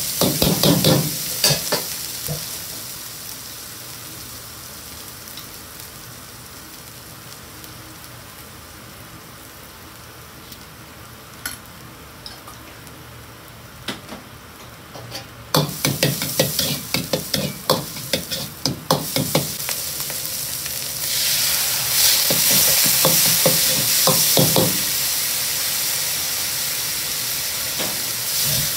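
Minced meat frying in a carbon-steel wok with a steady sizzle, while a metal wok ladle scrapes and knocks against the pan in quick strokes at the start and again about halfway through. From about two-thirds of the way in, the sizzle turns louder and hissier.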